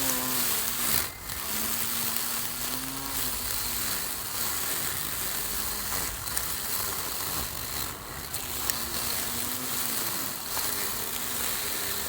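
Small lawn mower running and cutting grass, a steady hiss of cutting with the motor's pitch rising and falling every second or two.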